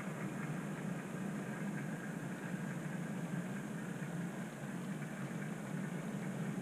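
OO gauge model trains running on the layout's track: a steady mechanical hum and rumble.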